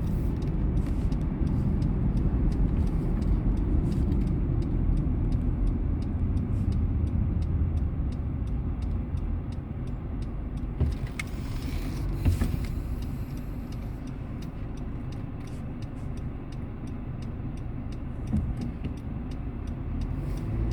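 Car driving along a road, heard from inside the cabin: a steady low rumble of engine and tyres that eases off a little partway through and picks up again near the end.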